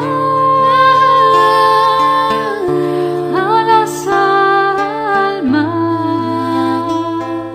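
Slow devotional choir song: female voices sing a gliding, held melody over sustained instrumental accompaniment.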